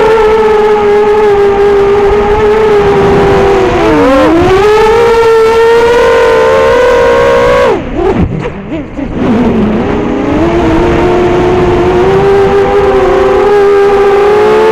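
Racerstar BR2205 brushless motors of an FPV racing quadcopter whining under throttle. The pitch dips and recovers about four seconds in, then the motors cut out for about a second and a half just past the middle before spinning back up.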